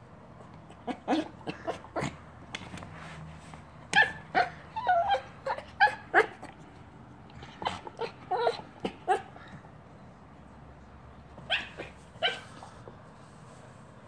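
Yorkshire terrier giving bursts of short, sharp whining yips and grunts, with a quiet pause about two-thirds of the way through. The noises come from frustration at a rubber chew toy that won't release its treats.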